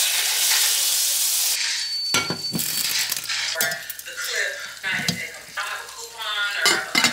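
Butter sizzling in a hot saucepan, a steady hiss that cuts off about a second and a half in. It is followed by scattered clinks and knocks of cookware being handled on the stovetop.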